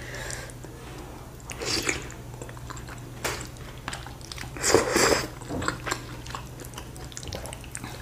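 Close-miked eating of chicken noodles: chewing and biting, with two louder slurps of noodles about two and five seconds in.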